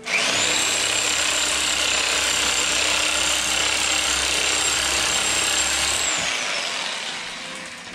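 Handheld electric power tool cutting through a beef leg joint: its motor starts abruptly with a steady high whine and runs under load for about six seconds, then winds down with a falling whine as it is switched off.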